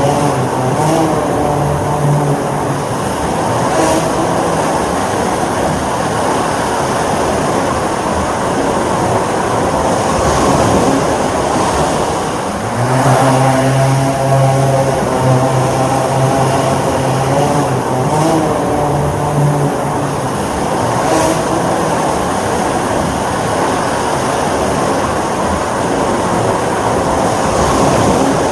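Drone's motors and propellers whirring steadily, the pitch wavering up and down as the motor speeds change.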